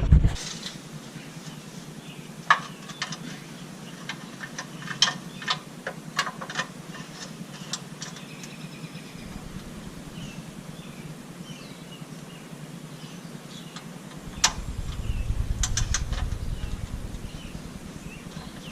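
Scattered clicks and metallic taps of a hand wrench working a mounting bolt loose, irregular rather than a steady ratchet rhythm. A low rumble rises about three-quarters of the way through and fades.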